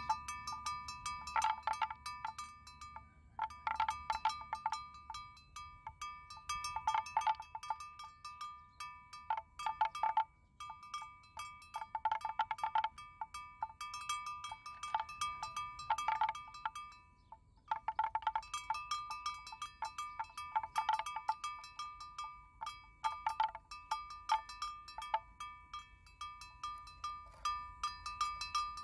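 Metal livestock bells worn by grazing water buffalo, clanking irregularly in runs of strokes with short pauses as the animals move their heads, each ringing at the same few pitches.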